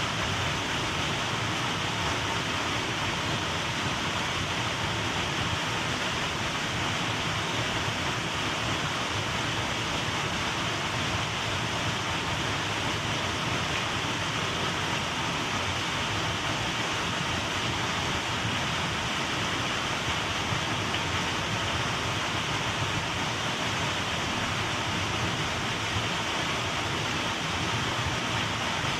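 Small waterfall's water rushing steadily, an even hiss with no change.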